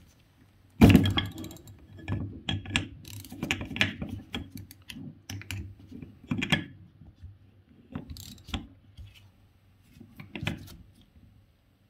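Socket ratchet clicking in irregular bursts, with metal clinks of the tool on the hub, as the hub is screwed back down onto the shaft of a Denso clutchless A/C compressor; a sharp knock about a second in is the loudest sound.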